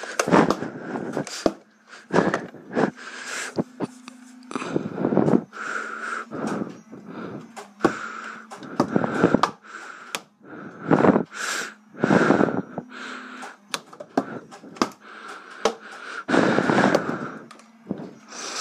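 A person's heavy breathing right up against the phone's microphone, loud breaths in and out about every second or two, with a few small handling clicks.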